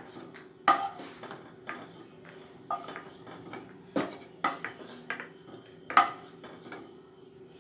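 Wooden spatula knocking and scraping against a non-stick kadai while fried cashews are scooped out of ghee, with sharp knocks about once a second over a faint steady hum.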